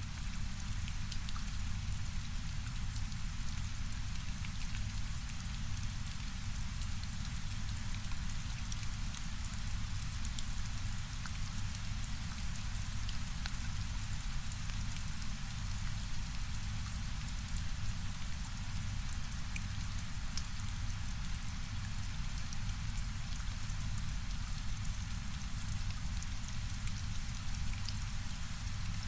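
Steady rain with scattered drop ticks, layered over a low rumble of brown noise.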